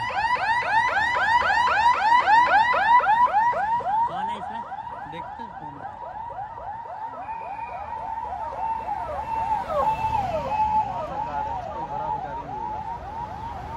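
Electronic vehicle siren in a fast yelp, about five rising-and-falling whoops a second, loud for the first few seconds and then fainter.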